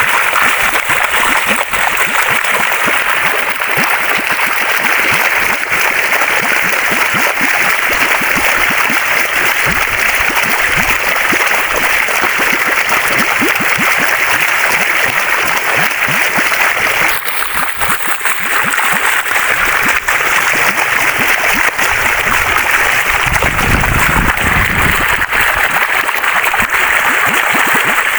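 Waterfall: water falling and splashing in a loud, steady rush, with a brief low rumble about three-quarters of the way through.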